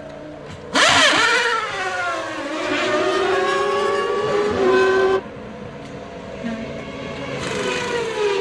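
1996 Formula One cars' 3-litre naturally aspirated racing engines at high revs. About a second in, a car bursts in loudly and its engine note falls sharply in pitch, then holds and climbs. The sound cuts off suddenly about five seconds in to a quieter engine note, and another car comes in near the end, its pitch falling.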